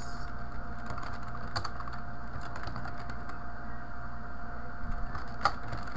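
Typing on a computer keyboard: a few scattered keystrokes over a steady background hum.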